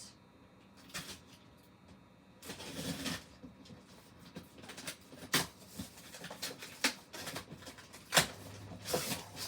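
Cardboard box and packaging being handled and opened: a rustle of cardboard, then scattered sharp taps and knocks, the loudest one about eight seconds in.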